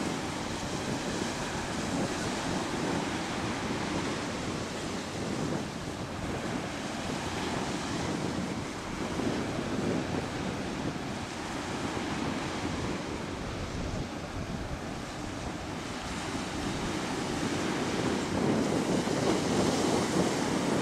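Steady wind noise on the microphone mixed with the wash of small waves breaking on a sandy shore, growing a little louder in the last few seconds.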